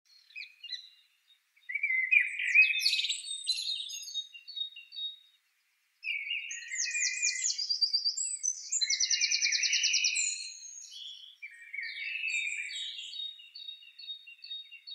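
Small songbirds singing: phrases of high chirps and quick trills, with short gaps between phrases.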